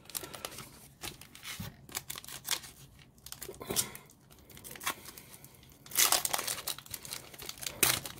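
Foil wrapper of a 2018 Donruss Elite football card pack being torn open and crinkled by hand, with scattered crackles and a louder run of crinkling about six seconds in.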